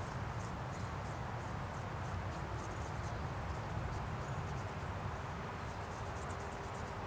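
Steady outdoor background rumble, with faint, quick, very high-pitched ticks coming in clusters, thickest near the end.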